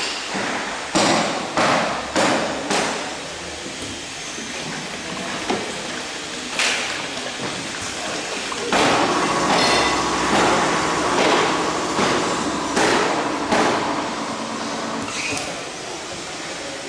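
Liquid filling and screw-capping machine running: sharp mechanical clacks, four in quick succession in the first three seconds and single ones after, then a louder stretch from about nine to fourteen seconds where a steady motor hum joins repeated clacks about every half second.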